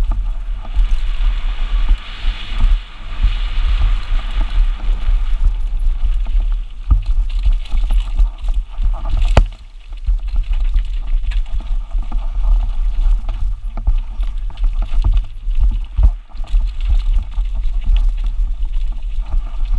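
Mountain bike descending a rough dirt and gravel downhill trail at speed: heavy wind rumble on the microphone over tyres crunching on loose ground, with the bike rattling and knocking over bumps, one sharp knock a little over nine seconds in.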